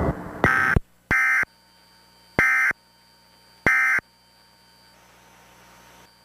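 Emergency Alert System end-of-message signal: four short, buzzy bursts of SAME digital data tones, the first two close together and the rest about a second and a quarter apart, marking the end of the test alert. A faint hiss follows.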